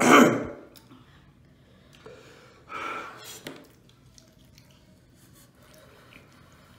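People eating saucy chicken wings: a loud sharp breath about three seconds in, then faint chewing and small wet mouth clicks.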